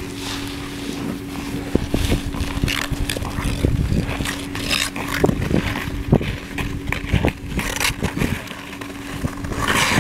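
Wind buffeting the microphone over a steady low hum, with irregular crunches and scrapes of an ice-crusted snow surface as a child crawls and slides across it.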